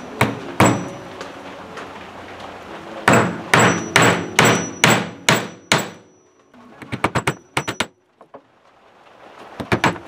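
A hammer driving steel nails into a wooden block. A few blows come at the start, then a run of seven steady blows about two to three a second, each with a short metallic ring, and a quick flurry of lighter taps a little later.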